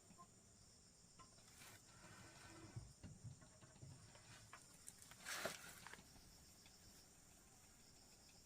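Near silence: a faint steady high hiss with a few soft clicks and rustles, and one brief louder rustle about five seconds in.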